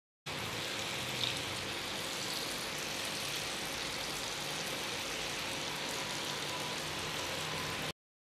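Batter-coated potato strips deep-frying in hot oil, sizzling and crackling steadily during the first of two fries, with one brief louder crackle about a second in.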